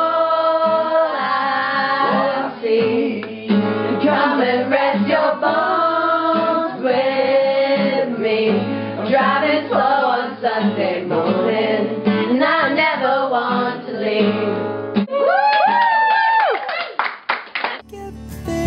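A group of girls singing a song together over guitar accompaniment, their voices carrying the melody up and down. Near the end the sound switches abruptly to a different, clearer music recording.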